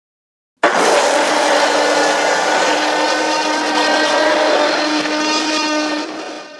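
Tyrannosaurus rex roar sound effect: one long, harsh roar that starts suddenly about half a second in, holds a steady pitch for about five seconds, then fades out near the end.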